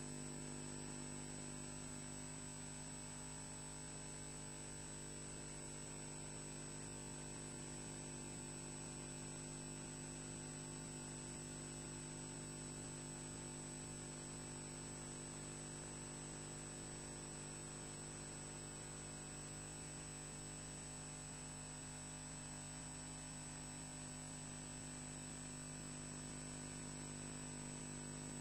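Steady electrical hum with several fixed tones, including a high whine, over a constant hiss: system noise on the nest camera's audio feed, with no bird calls.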